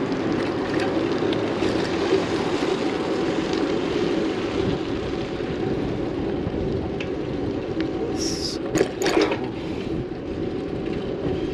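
Steady rushing noise of a bicycle ride: wind and tyre noise on the road. Two brief sharp sounds break in about eight and nine seconds in.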